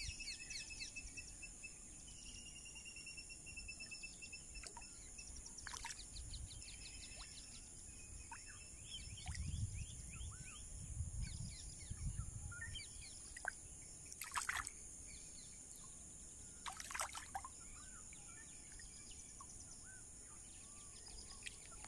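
Several small birds chirping and trilling on and off over a steady high-pitched hum. A few sharp clicks are heard, and there is a low rumble near the middle.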